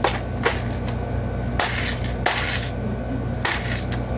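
Magazine being pushed into a pellet-gun sniper rifle's magazine well. It gives a few sharp clicks, then rubbing and knocking noises as it is fitted and seated.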